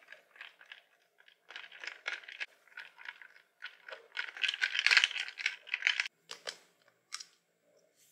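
Ice cubes and salt rattling and crunching inside a plastic Takara Tomy 'Ice Yo-Yo' toy ice cream maker ball as it is swung on its string, a run of scraping rattles that is loudest about five seconds in. A few separate plastic clicks follow near the end as the ball is opened.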